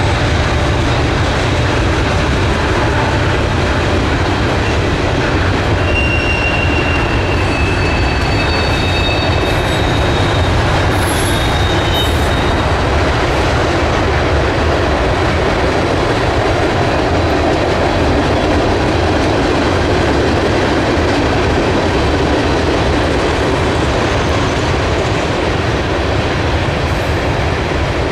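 Freight train of tank cars rolling by: a steady, loud rumble of wheels on the rails, with thin high wheel squeals between about six and thirteen seconds in.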